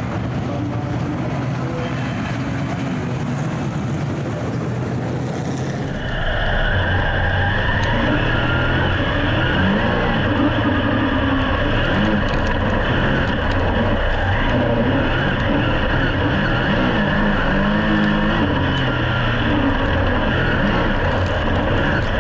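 A pack of dirt-track super saloon V8 engines running together, heard from trackside. About six seconds in, the sound changes abruptly to inside one of the cars: its engine is loud and close, its pitch rising and falling as it races on the dirt, with a steady high whine over it.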